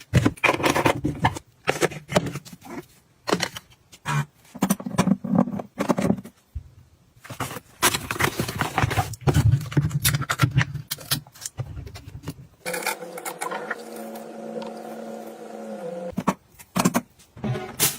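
Household items being handled and set down: a run of clicks, knocks and scrapes. For about three seconds past the middle a steady hum runs under them.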